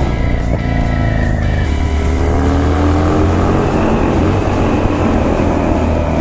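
Harley-Davidson Dyna Street Bob's V-twin engine running loud through its exhaust while riding, its pitch dropping and rising again as the throttle is worked.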